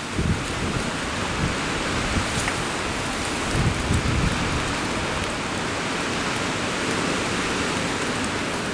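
Heavy rain falling steadily, a dense hiss, with low rumbles just after the start and again around four seconds in.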